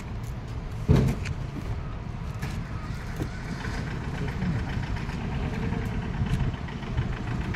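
A large cardboard box being loaded and shifted in a car boot, with one sharp knock about a second in and a few lighter bumps, over a steady low outdoor rumble.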